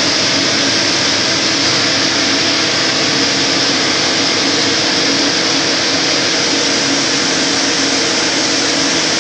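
FTC30 CNC lathe running: a steady, loud hiss over a constant low hum, with no change in pitch or level.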